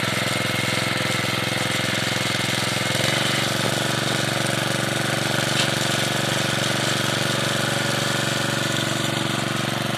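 Honda GX series four-stroke petrol engine of a Meccanica Benassi BL-105 walk-behind tiller running steadily. The engine note changes slightly about three seconds in.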